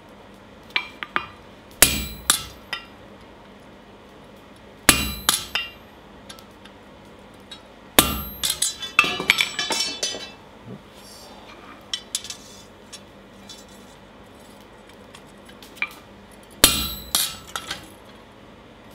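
Hand hammer striking a slot punch driven through a hot steel bar on an anvil, each blow a sharp, ringing metal clang. The blows come in short groups of a few strikes, with a quick run of lighter clinks about eight seconds in.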